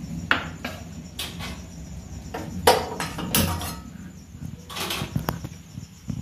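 Kitchen clatter of an aluminium pot and utensils on a gas stove: a string of sharp knocks and clanks, loudest about two and a half and three and a half seconds in, over a low steady hum.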